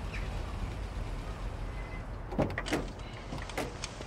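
Vehicle doors being handled: a run of short clicks and knocks about two seconds in, as a door is latched and shut, over a low steady rumble of a street.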